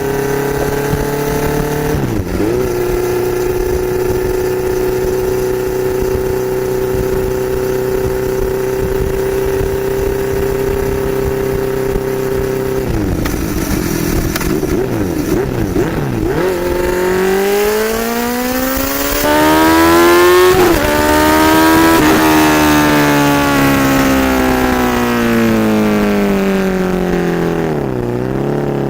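Honda CBR650F's inline-four engine through an SC-Project S1 slip-on exhaust, ridden at speed. It holds a steady note with a brief dip about two seconds in, turns uneven around the middle, then revs up hard through a quick gear change and winds down with falling pitch near the end.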